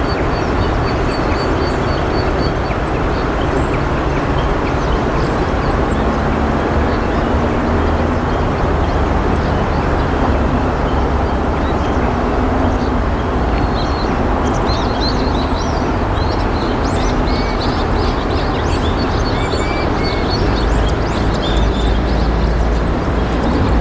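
Steady rush of flowing water, with high, short chirps of small songbirds over it at the start and again through the second half.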